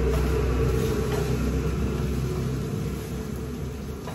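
Low steady mechanical rumble with a hum, easing off a little about three seconds in.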